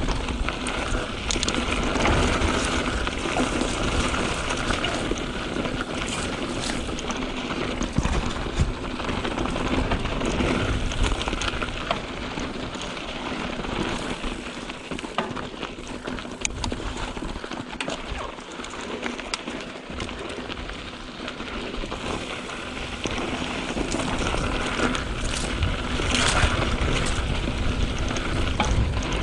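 Canyon Spectral 7 mountain bike descending a dry, loose dirt trail: tyres rolling and crunching over dirt and rocks, with many small clicks and rattles from the bike over bumps. The noise eases a little in the middle and picks up again near the end.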